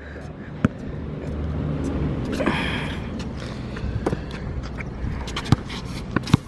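A basketball bouncing and being caught on an outdoor asphalt court: a few sharp knocks, most of them in the second half, with footsteps. Under them a low rumble swells over the first couple of seconds and then eases.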